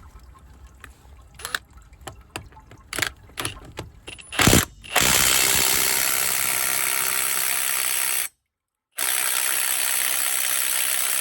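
Ryobi R18IW7 18-volt cordless impact wrench hammering continuously on a rusted lug nut that is not budging, even on its top power setting. A few knocks and clicks come first, then the hammering starts about five seconds in, stops briefly near eight seconds, and starts again.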